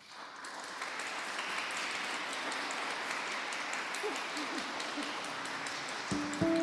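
Audience applauding, swelling over the first second and then holding steady. Music with a few sustained notes comes in near the end.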